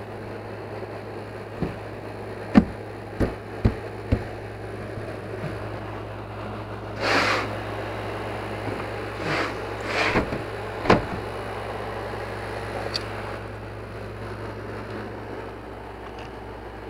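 Handling noises in a small boat's cabin: a run of sharp knocks and clicks in the first few seconds, then several short scraping rustles around the middle, over a steady low hum.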